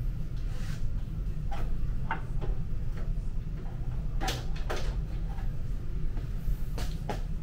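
Sharp clicks and knocks of a folding Torx key set against the plastic cover of a wide-format printer as its cover screws are driven back in, about six of them, some in close pairs. A steady low hum runs underneath.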